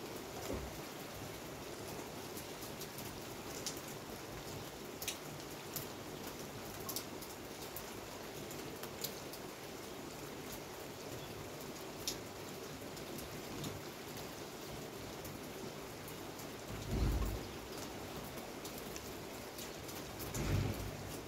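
Rain falling steadily, an even hiss with scattered sharp drips close by. Two brief low rumbles come in the second half.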